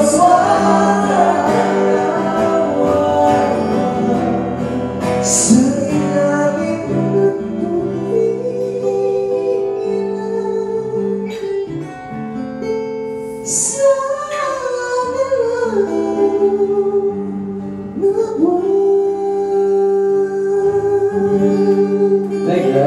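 Live singing into microphones over a strummed acoustic guitar: a slow song with long held vocal notes.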